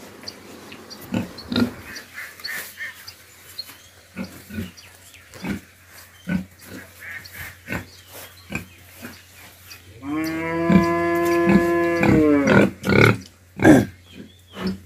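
Pigs grunting in short scattered bursts, then about ten seconds in a pig gives one long, steady squeal lasting a couple of seconds that drops in pitch at the end, followed by a few loud grunts.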